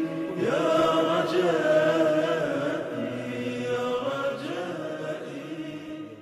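A cappella background chant with several voices and no instruments, holding long, slightly wavering notes. It fades out gradually over the second half.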